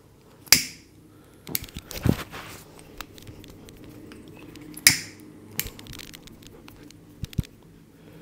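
Hands working during a head massage: two sharp, loud cracks about four seconds apart, with smaller clicks and taps between them.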